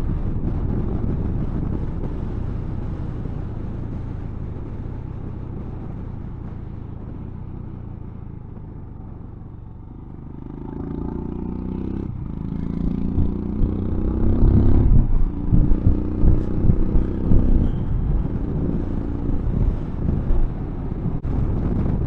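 Motorcycle engine heard while riding, with wind noise. It dies down over the first ten seconds, then picks up again as the engine pulls harder through a couple of gear changes.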